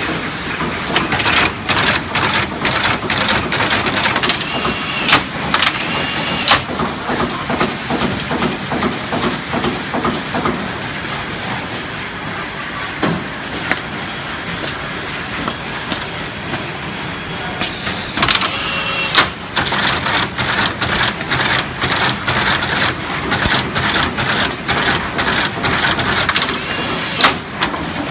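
Automatic axial-lead component insertion machine working on a PCB, a fast clatter of insertion strokes, several sharp clicks a second, over a steady machine hum. The clicking eases off for about ten seconds in the middle, then starts again about two-thirds of the way through.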